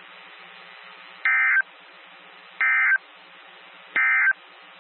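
Emergency Alert System SAME digital data tones sending the end-of-message ("NNNN") code three times. Three short bursts, each about a third of a second, come about 1.3 seconds apart over faint steady radio static, marking the end of the alert.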